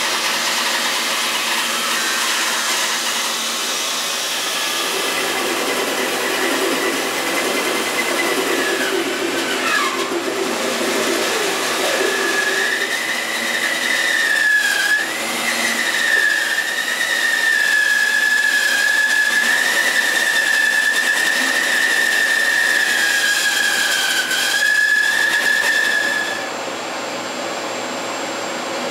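A 15-inch bandsaw resaws a hardwood log into planks: the motor and blade run with a steady hiss of cutting, and a high, wavering whine comes from the blade in the wood for much of the cut. Near the end the cut finishes and the saw runs on more quietly.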